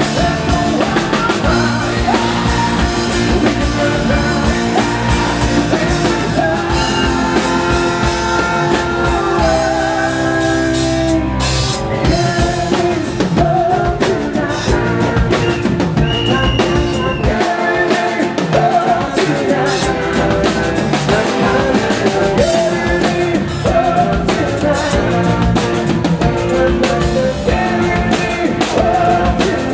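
Live rock band playing loudly through a PA system: drum kit, electric guitar and keyboards, with a sung vocal line.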